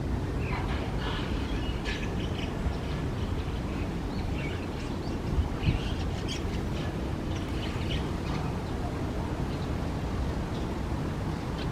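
Small birds giving short, scattered chirps over a steady low background rumble.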